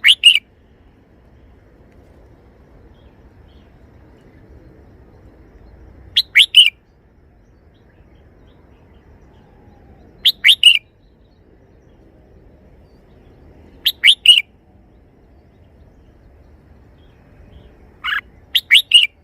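Red-whiskered bulbul singing its short three-syllable song phrase, repeated five times about every four seconds.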